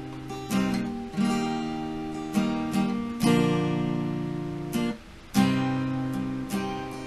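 Acoustic guitar strummed in slow chords, each struck chord ringing and fading before the next. The strings are briefly muted just before five seconds in, then the strumming goes on.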